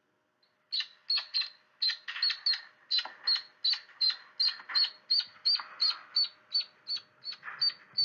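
Duckling peeping: a fast run of short, high-pitched peeps, about three a second, starting about a second in.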